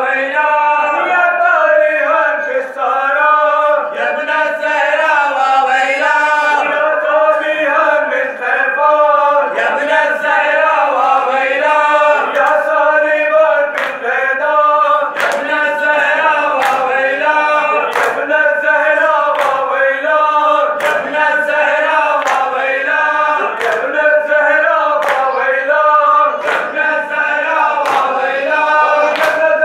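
A group of men chant a mourning lament together, with sharp hand slaps on bare chests (matam) keeping time about once a second from about a third of the way in.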